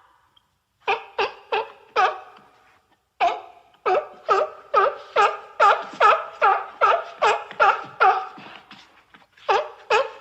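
An animal calling in a rapid series of short, nasal, pitched calls, about three a second, with a break about 2.5 s in.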